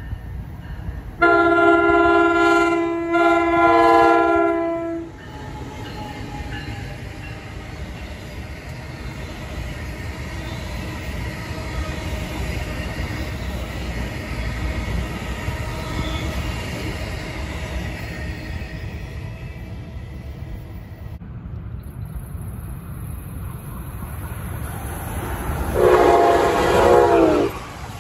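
Passing trains on an electrified main line. An NJ Transit train's horn sounds about a second in and runs for about four seconds, with a short break in the middle. Then comes the steady rumble and wheel noise of its multilevel coaches going by. Near the end an Amtrak train sounds its horn for about a second and a half, the pitch dropping as it passes.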